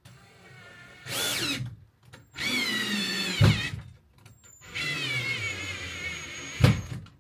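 Cordless drill/driver driving screws through a TV wall-mount bracket into the wall: three runs of motor whine whose pitch rises and falls as the trigger is worked, with a sharp knock near the end of the second and third runs.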